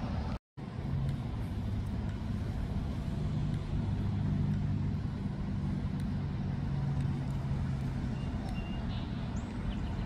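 Steady low rumble of road traffic, with an engine hum that swells from about three to eight seconds in. The sound drops out completely for a split second about half a second in.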